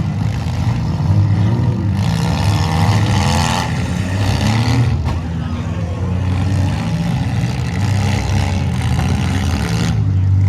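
Demolition derby cars' engines running loud and continuous, revving up, with a surge of rougher noise two to three seconds in.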